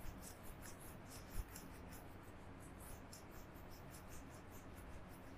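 Whiteboard eraser wiping marker off a white board in quick repeated strokes, faint, with a soft bump about one and a half seconds in.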